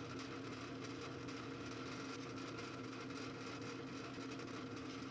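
Drill press running steadily while its bit cuts a hole in a small metal block: an even motor hum with a few steady tones.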